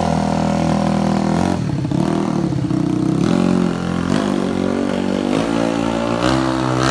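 Modified Yamaha Mio scooter's 215cc engine revving as the scooter rides off, its note rising and dropping several times.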